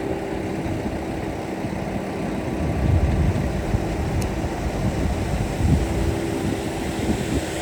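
An engine running steadily, a continuous low rumble with a faint steady hum.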